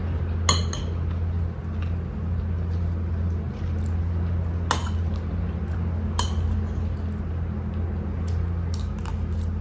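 A metal spoon clinking and scraping against a plate of fried rice while eating, a few separate clinks with three sharp ones, over a steady low hum.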